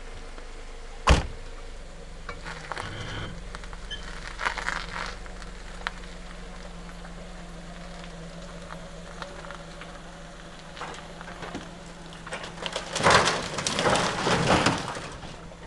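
An old timber woodshed being pulled down by a car, with a sharp knock about a second in. As the car slowly takes the strain there is intermittent creaking and cracking of wood over a low steady engine hum. Near the end the shed gives way in a loud crashing clatter of timber.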